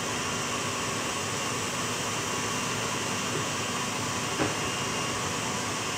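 KitchenAid bowl-lift stand mixer running steadily, its whisk beating egg whites with hot sugar syrup into an Italian meringue for macarons. A light click about four and a half seconds in.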